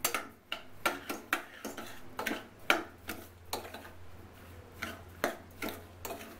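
Metal ladle scraping and clacking against the inside of a stainless steel pressure cooker as cooked chana dal and sugar are stirred, in irregular strokes about two a second.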